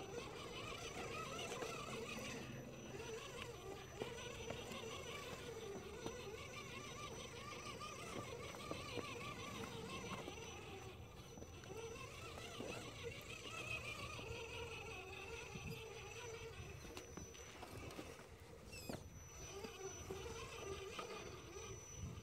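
Electric motor and geared drivetrain of a scale RC rock crawler whining as it crawls over rock, the whine wavering up and down in pitch with the throttle. A faint steady high tone sits under it.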